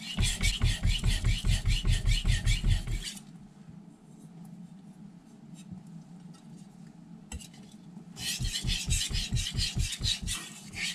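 A carbon steel knife blade stroked quickly back and forth on a Naniwa Snow White 8000-grit whetstone, a rasping rhythm of about four to five strokes a second. The stroking stops about three seconds in and resumes after about five seconds.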